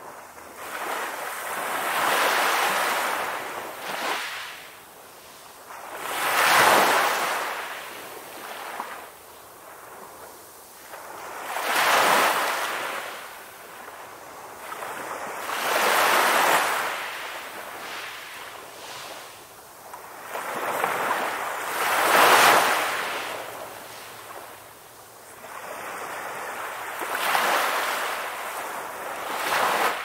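Ocean surf breaking and washing up the shore, a rushing hiss that swells and ebbs as each wave comes in, about every four to six seconds.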